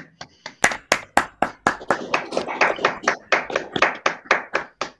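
Hands clapping in applause heard over a video call, quick claps at about four or five a second beginning about half a second in.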